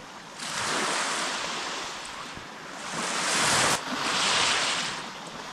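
Small waves washing in on a sandy beach, the surf swelling and easing several times.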